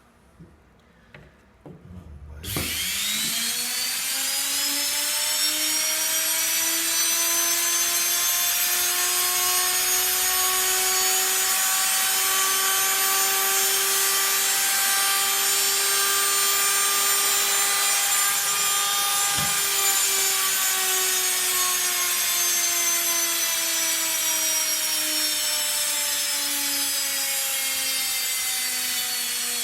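Washing-machine electric motor running free on the bench: after a few faint clicks it starts suddenly, its whine climbing in pitch over a second or two as it spins up, then running with a steady high whine that creeps slowly higher. After a sharp click about twenty seconds in, the pitch sinks steadily as the motor slows.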